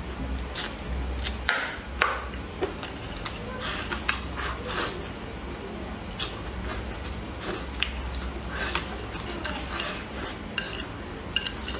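Close-up eating sounds: irregular wet chewing and mouth noises as mouthfuls of rice and stir-fried pork liver are eaten, with the occasional click of chopsticks against a bowl.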